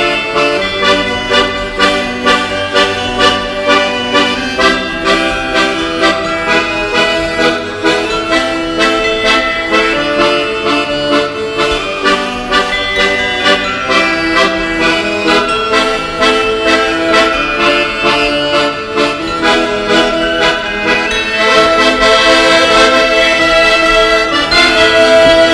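Traditional folk music led by an accordion, with a steady beat of about two a second, growing louder near the end.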